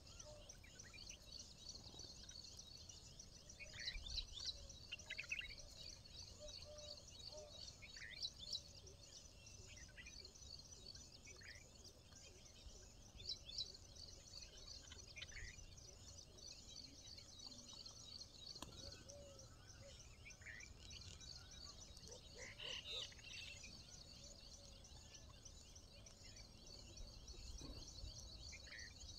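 Faint outdoor ambience: a steady, high, fast-pulsing insect chorus, with short chirps dotted through it every few seconds.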